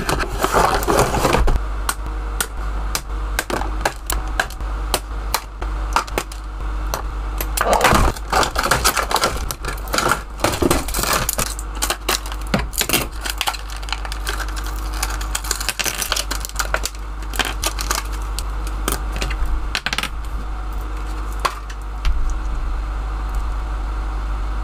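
Hands unboxing a fashion doll: cardboard and plastic packaging rustling, with many small clicks and clinks as the small plastic accessories are handled and snipped free with scissors.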